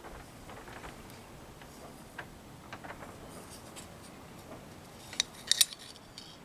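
Faint scattered taps and scrapes of small hard objects being handled, with sharp clicks near the end: one about five seconds in, then a quick pair just after.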